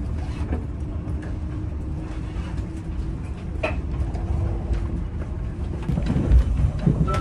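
Inside a 381 series electric limited express train moving slowly away from the station: a steady low running rumble with a faint hum, and a few heavier low thumps near the end.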